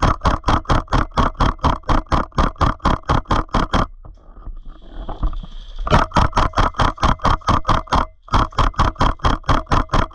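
Airsoft gun firing on full auto in long bursts, about seven shots a second with a steady whir under each shot. It stops for about two seconds near the middle and again briefly later, then resumes.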